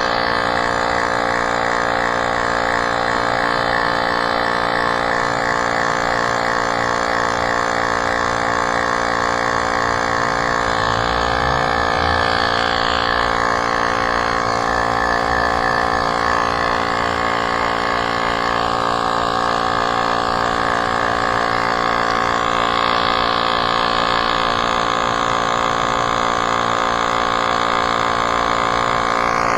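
Portable electric tyre pump running with a steady motor hum as it pumps air into an e-bike's inner tube.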